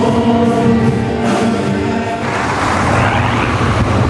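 Church worship music with voices singing. About two seconds in it cuts to road traffic noise, with a bus driving past.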